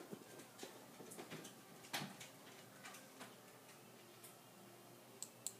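Near silence with a few faint, scattered clicks, the clearest about two seconds in and two close together near the end.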